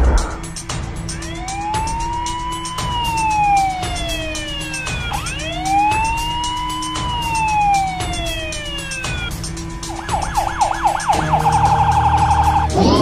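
Toy police truck's electronic siren: two slow wails, each rising and then falling, then a fast yelp about ten seconds in that turns into a rapid warble near the end.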